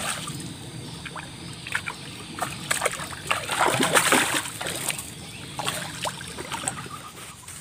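Water splashing and sloshing in shallow river water as a hooked catch thrashes while being scooped with a landing net, with the biggest splash about four seconds in.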